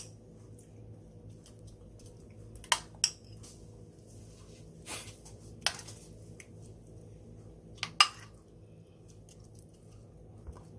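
A metal spoon clinking and scraping against a bowl as a seasoning paste is spooned out onto the food: about seven sharp clinks spread through, the loudest about eight seconds in.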